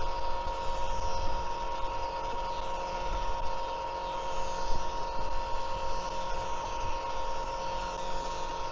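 Battery-powered electric oil transfer pump running steadily as it pumps gear oil into a differential, a constant motor whine with a low hum beneath.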